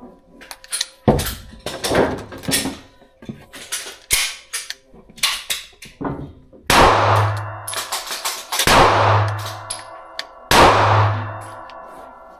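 Gunfire at a shooting range: a string of sharp shots and cracks, then three heavier booms about two seconds apart in the second half, each trailing off in a ringing tail.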